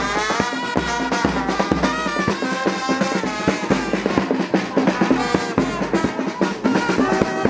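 Music with a drum kit keeping a steady beat under pitched melody lines.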